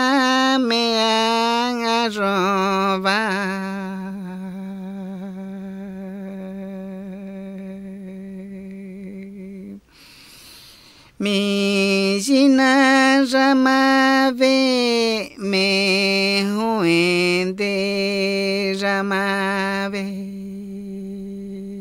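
A man singing a Shipibo icaro (healing song) alone, in long held notes with a slow waver, partly hummed. There is a short pause about ten seconds in before the chant resumes.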